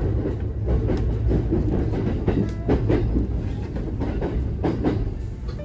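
Kintetsu train running along the track: a steady low rumble with a few sharp clacks of the wheels over rail joints, clustered around the middle and near the end.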